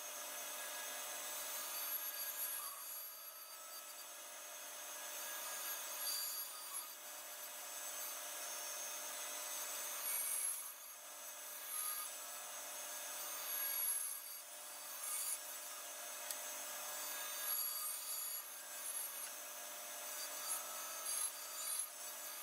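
Bandsaw blade cutting small laminated blocks of walnut and light hardwood: a steady sawing hiss that eases briefly a few times between cuts.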